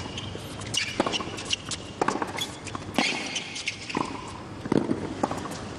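Tennis rally on a hard court: sharp hits of racket strings on the ball about once a second, with the players' footsteps on the court between shots.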